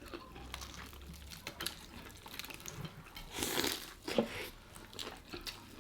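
Eating sounds of crispy fried chicken: faint crunches and chewing, with a short louder crunch or crinkle about three and a half seconds in.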